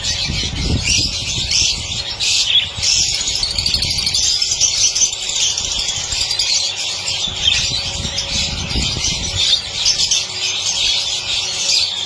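Budgerigars chattering and warbling together, a dense, continuous high-pitched twittering.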